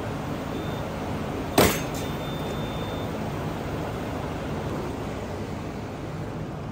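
Clamshell heat press finishing its timed press: short high beeps about once a second, then the lid releasing with a sharp clack about one and a half seconds in, followed by a steady beep about a second long. A steady rushing background noise runs underneath.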